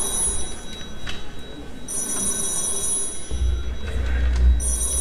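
The theatre's electric call bell ringing in repeated rings before the performance, starting anew about two seconds and four and a half seconds in, over the low noise of a seated audience in the hall.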